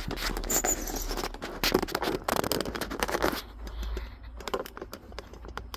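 Scraping and rustling with a rapid run of small clicks, thinning to scattered clicks after about three and a half seconds: close handling noise at a work desk.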